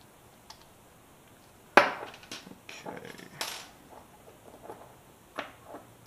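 Sharp metallic clicks and clinks from a brass lock cylinder and small metal lockpicking tools being handled. The loudest click comes a little under two seconds in, followed by a quick cluster of smaller clinks, and one more click near the end.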